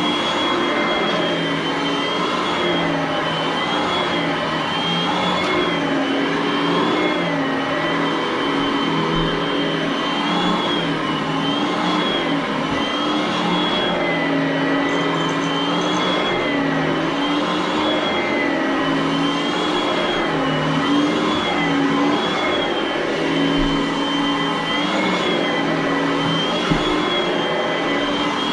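Oreck upright vacuum cleaner running continuously, its motor whine wavering slightly up and down in pitch every second or two.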